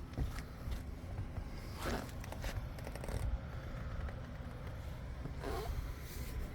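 Low steady rumble with a few light clicks and scraping, rustling sounds, two longer scrapes about two seconds in and near the end.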